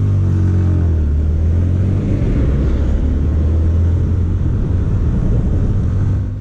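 Motorcycle engine running under way, with a steady low drone that rises a little as the bike picks up speed near the start, mixed with wind rush on the microphone.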